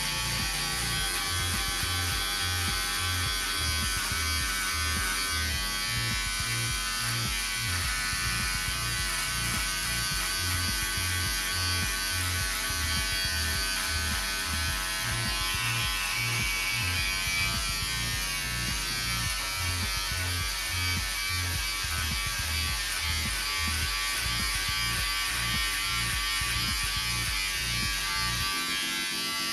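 Remington MB070 Durablade Pro beard trimmer running with a steady buzz, its blade cutting short beard stubble along the cheek, jaw and neck.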